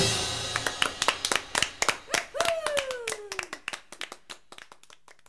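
Scattered hand claps thinning out and fading away, with one long falling call, like a voice, about two seconds in.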